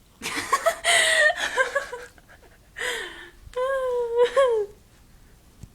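Dog whimpering and whining in three high-pitched bouts. The last whine is held steady for about a second, then rises briefly and falls away.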